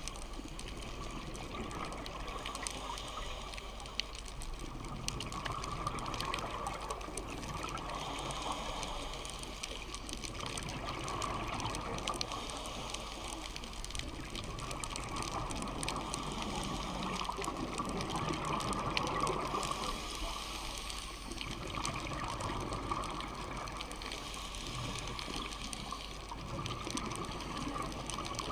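Muffled underwater sound heard through a diving camera's housing: a continuous water hiss and rumble that swells and fades about every five seconds, in the rhythm of a scuba diver's breathing and exhaled bubbles.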